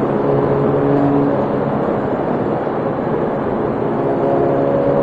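Motorcycle engine running at a steady cruise, its drone held level, with wind rushing over the microphone.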